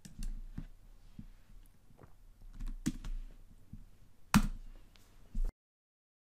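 Scattered clicks and keystrokes on a computer keyboard and mouse, two of them louder about three and four and a half seconds in. The sound then cuts off abruptly to dead silence.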